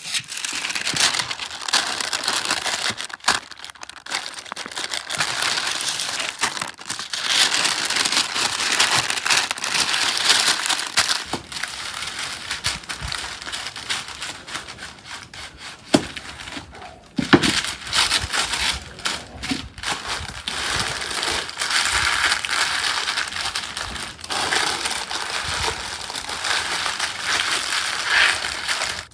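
Baking parchment paper crinkling and rustling as it is folded and pressed around a whole chicken, with a few sharper crackles about halfway through.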